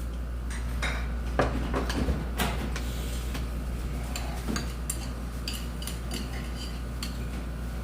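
Eating utensils clinking and knocking against dishes while food is served and eaten: a scatter of sharp clicks and taps, busiest in the first few seconds, then lighter ticks with a faint ring. A steady low hum runs underneath.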